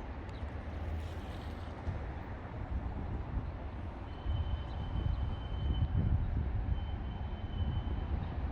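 Outdoor city ambience: a steady low rumble of distant traffic. A faint thin high tone sounds twice in the second half.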